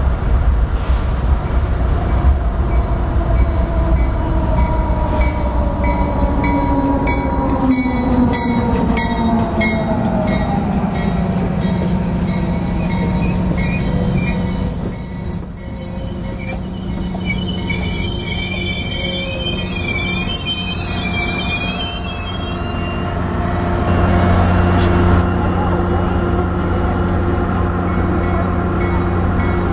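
A diesel locomotive hauling bilevel commuter cars passes close by, its engine tone dropping in pitch as it goes past, with clicks of wheels over rail joints. From about 13 to 23 seconds, high wavering wheel squeal rings out as the cars roll through, followed by a steady low rumble of the passing train.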